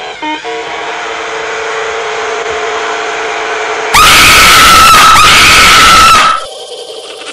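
A held musical note, then about four seconds in a sudden, very loud, harsh scream sound effect that lasts about two and a half seconds and cuts off abruptly, followed by a quieter rapid buzzing.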